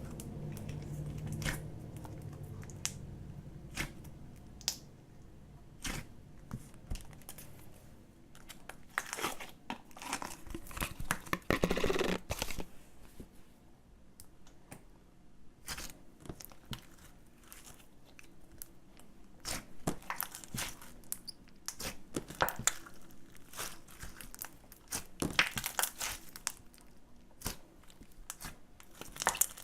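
Slime being worked by hand: irregular crackles, crinkles and tearing sounds, with a louder burst of crackling about twelve seconds in and another near the end.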